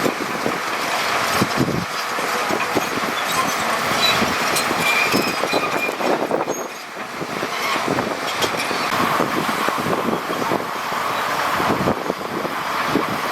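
Heavy construction machinery working: diesel bulldozer and dump truck engines running steadily, with irregular knocks and clanks throughout.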